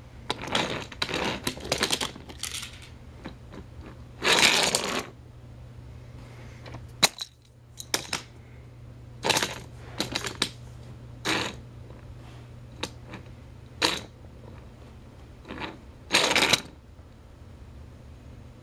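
Handling noise from a toy train engine being moved about on a plastic toy track set by hand: irregular scrapes, rustles and sharp clicks of plastic and metal, some about a second long, over a steady low hum that drops out briefly about seven seconds in.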